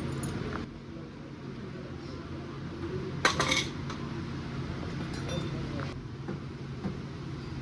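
Metal tools or parts clinking against each other, with a short cluster of sharp clinks about three seconds in and lighter ticks after, over a steady low hum.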